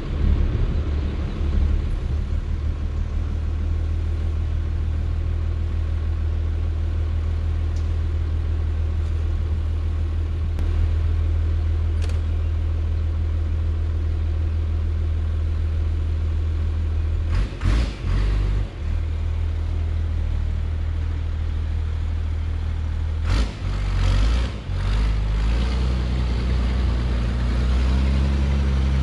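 Heavy diesel truck engine idling with a steady low rumble. The sound breaks up and shifts twice, briefly about 17 s in and again a few seconds later.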